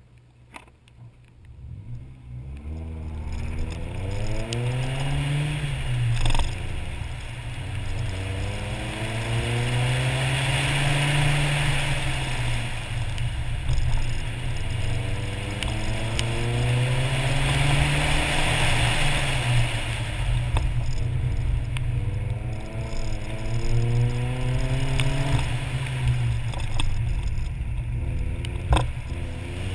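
Nissan 240SX's KA24 four-cylinder engine under hard acceleration heard from onboard, the revs climbing and falling again and again as the car is driven through an autocross course, building from quiet over the first few seconds. A steady hiss from wet tyres and spray runs beneath it, with a couple of sharp knocks.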